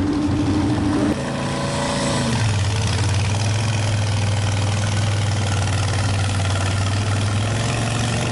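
Modified lawn tractor engine at high revs that cut off about a second in, the engine then slowing and settling to a steady idle.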